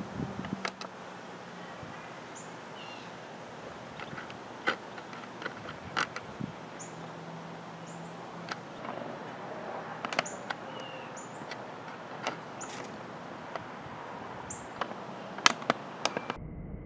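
Outdoor ambience with scattered short, high bird chirps and sharp clicks, over a faint steady high-pitched tone.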